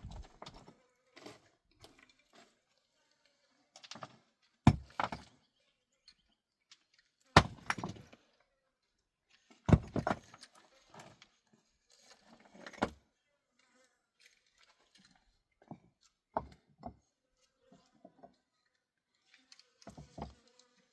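Irregular sharp knocks and thuds of hard objects being handled, with rustling and scraping between them; the three loudest strikes come about five, seven and a half, and ten seconds in.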